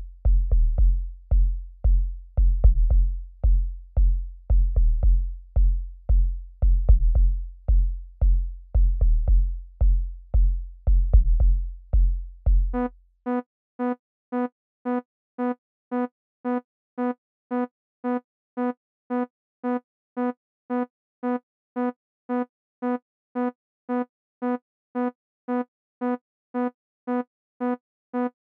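An amapiano drum loop playing back from FL Studio at 113 BPM: deep kick drums under clicking percussion. About thirteen seconds in, the drums stop and a single synth note from the DX10 FM synth repeats evenly, about twice a second.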